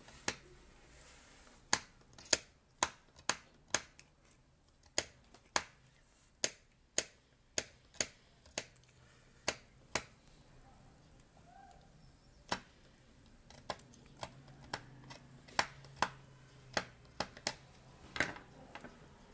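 Sharp, irregular clicks of a gas heater's spark igniter firing again and again, roughly one or two a second, with a short pause about ten seconds in.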